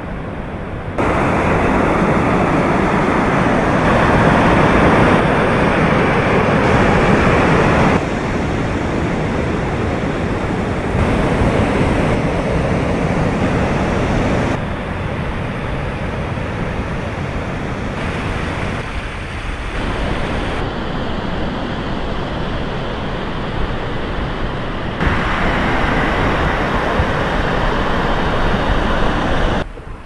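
Steady rushing of waterfalls and fast river water, a dense noise of falling water that jumps abruptly in loudness and tone several times as the shots change.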